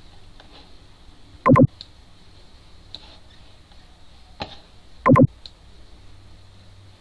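Computer mouse being clicked and scrolled: two loud, short bursts about three and a half seconds apart, with a few faint clicks between them.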